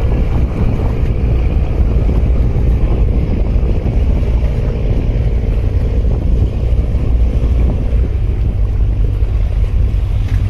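Wind buffeting the microphone in a steady low rumble, over choppy harbour water.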